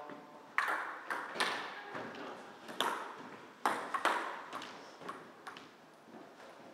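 Table tennis ball clicking against bats and the table, sharp knocks about every half second to a second, each with a short ringing echo off the bare walls of a squash court. The hits grow fainter toward the end.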